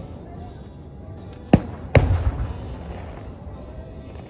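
Fireworks going off: two sharp bangs about half a second apart, roughly a second and a half in, over a steady low rumble of other bursts.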